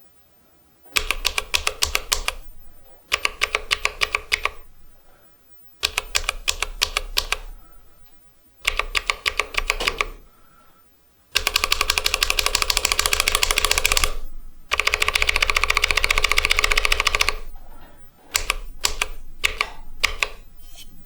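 Tactile mechanical keyboard switches (Zealios 67g) being pressed rapidly as a sound test comparing a lubed and an unlubed switch. The clicking comes in short bursts at first, then in two longer runs of fast, even keystrokes, and ends with a few sparser presses.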